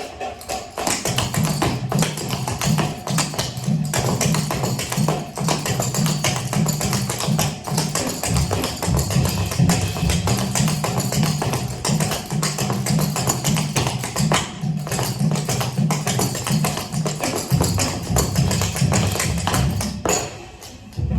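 Music with a steady, repeating bass pattern and dense, quick percussive tapping over it, briefly dropping out near the end before starting again.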